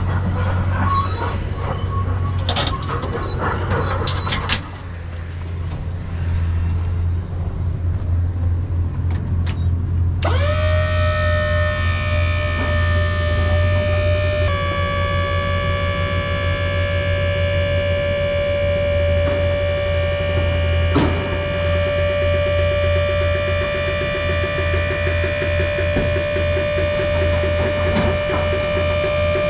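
Machinery engine running with a steady low rumble while brush and logs clatter and knock during loading. About ten seconds in, background music of long held chords comes in over the engine and continues.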